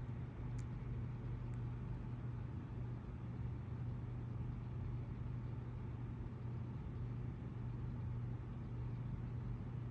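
A steady low hum with a faint even hiss.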